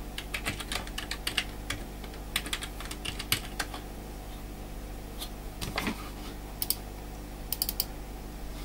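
Typing on a computer keyboard: quick runs of keystrokes over the first few seconds, then a few scattered clicks, over a steady low electrical hum.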